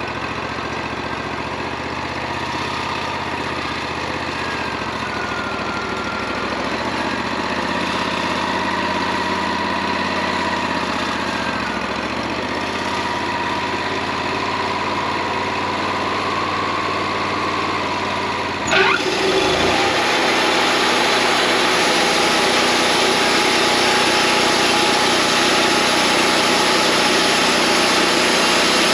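Wood-Mizer LT40 portable bandsaw mill running steadily. About two-thirds of the way in, the sound changes abruptly to a louder, rougher running noise.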